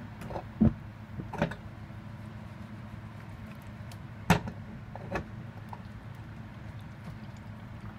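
A few sharp knocks and clicks of cookware being handled on the stove, spread through a steady low hum.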